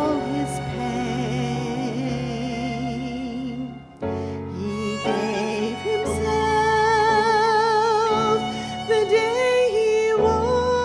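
Solo singing with a wide vibrato on long held notes over instrumental accompaniment, with a brief break in the music about four seconds in.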